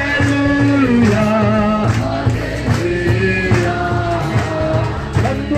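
Gospel worship song: singing in long held notes over a band with a steady drum beat.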